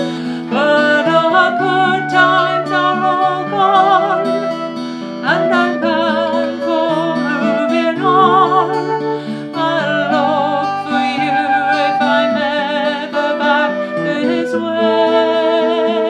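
A woman singing a slow folk song to her own strummed acoustic guitar, with a concert flute playing a sustained melody alongside.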